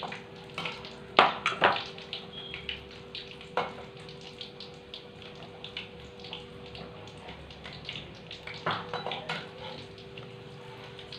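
Filled bread rolls deep-frying in hot oil: a steady sizzle with scattered crackles, and a few sharp knocks of a utensil against the pan. A steady low hum runs underneath.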